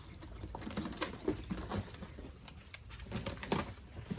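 Cardboard boxes and packaging being handled: scattered rustling, scraping and light knocks.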